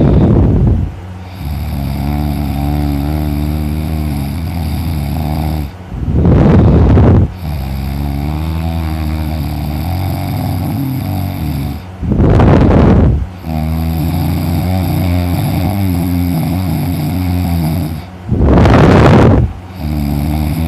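A sleeping person snoring heavily: four loud snores about six seconds apart, each lasting about a second and a half, with a lower, steady droning breath sound between them.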